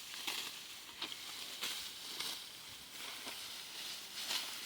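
Rustling and scraping noises in short, uneven strokes about every half second to a second, over a steady hiss.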